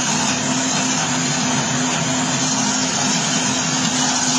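Multifunction kitchen robot's blade spinning at speed 9, blending fruit and sweet cream into ice cream: a loud, steady whir with an even hum.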